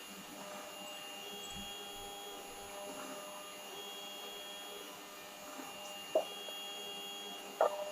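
Steady electrical or machine hum made of several tones, with a high whine that switches on and off every second or two, and two short clicks near the end.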